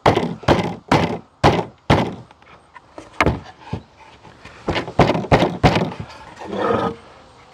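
Wooden hive-box boards knocking against each other and the table as the finger-jointed parts are handled and fitted. The sharp wooden thunks come about two a second at first, then two more, then a quick run of four.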